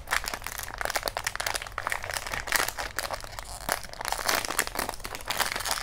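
Silver Pop Mart foil blind-box bag crinkling and crackling as hands crumple it and pick it open, a dense irregular run of rustles.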